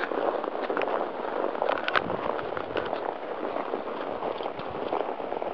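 Steady crackling, rustling noise with scattered irregular clicks, from a handheld camera's microphone being jostled and rubbed while riding horseback.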